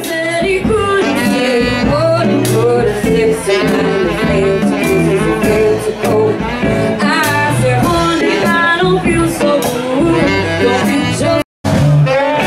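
Live jazz combo: a woman singing with upright bass, saxophone and drums. The sound drops out for a moment near the end.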